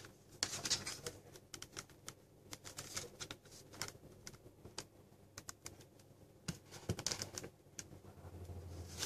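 Handling noise from a JOI 11 Yoga 2-in-1 laptop being turned over on its hinges into tent mode: irregular small clicks and taps from the keyboard deck and casing, with some rubbing of hands on the body.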